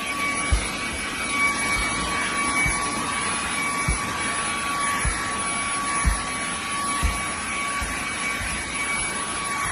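Fanttik Slim V8 APEX cordless handheld vacuum running steadily, a high motor whine over rushing air, with occasional low thumps.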